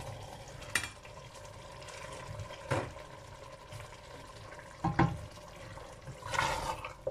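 Boiled chana dal slid from a bowl into a steel pressure-cooker pot of simmering zucchini curry and stirred in with a black spatula: wet sliding and stirring with a few sharp knocks against the pot, the loudest about five seconds in.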